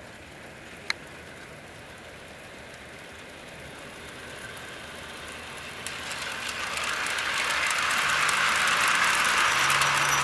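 G-scale Bachmann consolidation model locomotive with a Barry's Big Trains conversion drive, pulling its train closer: the rolling noise of metal wheels on track grows louder, with rapid fine clicking, and a low motor hum comes in near the end. A single sharp click about a second in.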